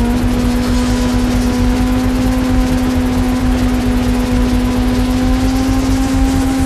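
Sport motorcycle engine held at a steady high rev at speed, one constant engine note, with heavy wind rumble on the onboard microphone.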